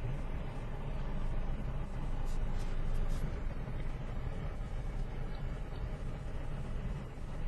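Steady low rumble of a car heard from inside its cabin, engine running with no words over it.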